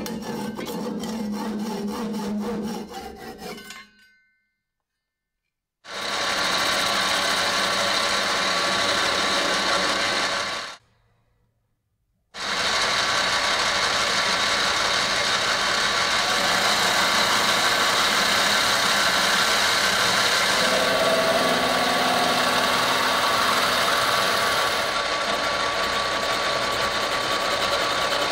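Fine-toothed hand saw cutting through a kingwood handle in quick strokes for about four seconds. After a pause, a lathe runs with a steady whir while a centre drill and then a boring bar cut into the spinning workpiece, with one short break partway through.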